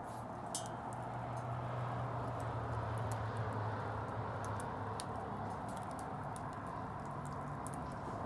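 Wood bonfire burning: irregular sharp crackles and pops over a steady rushing hiss and a low steady rumble.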